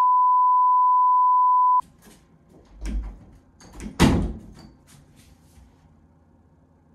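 A steady test-tone beep of the kind played with TV colour bars, held for about two seconds and cutting off sharply. Then a few knocks and a louder thud about four seconds in as a door is handled.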